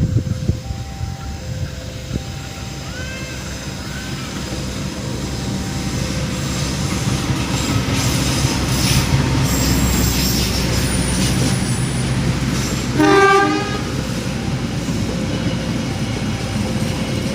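CC206 diesel-electric locomotive arriving with its train, the engine and wheels growing steadily louder. It gives one short horn blast about three quarters of the way through.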